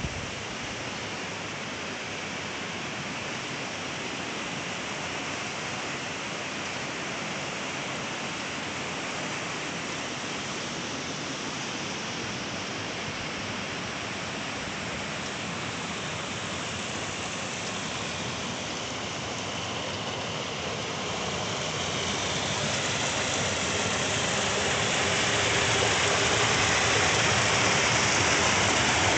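Steady rush of water pouring over the concrete weirs of fish-farm tanks, growing louder in the last several seconds.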